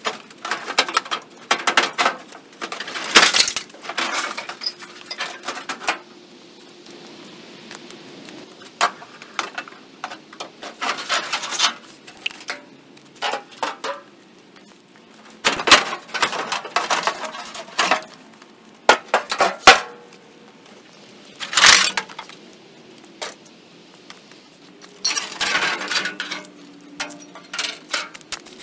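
Irregular metallic clanks, clinks and rattles of steel body panels and hand tools as the front fenders and grille are unbolted and lifted off a 1953 Chevrolet, with sharp knocks in scattered clusters.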